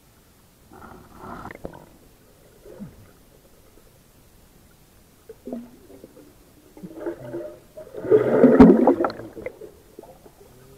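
Muffled underwater gurgling and bubbling, with the camera submerged while hands grope for freshwater clams. It comes in irregular bursts, the loudest stretch about eight seconds in, with a sharp click in the middle of it.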